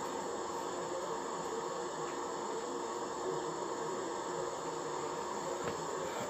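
Steady, even background noise with a few faint steady tones underneath, unchanging throughout.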